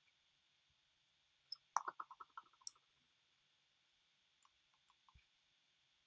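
Quiet clicks from working a laptop over near silence. A quick run of about half a dozen clicks comes near two seconds in, and a few fainter single clicks follow around five seconds in.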